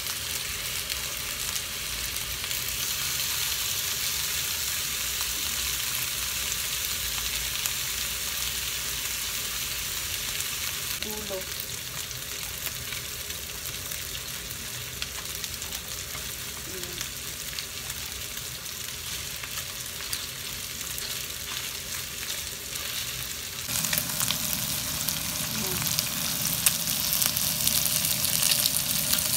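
Lamb chops frying in hot oil in a frying pan: a steady sizzling hiss that turns louder and more crackly about three-quarters of the way through.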